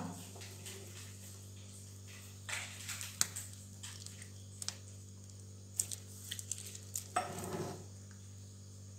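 Faint squeezing and rustling of a plastic piping bag as whipped cream is piped onto a cake, with scattered small clicks and a slightly longer rustle about seven seconds in, over a steady low hum.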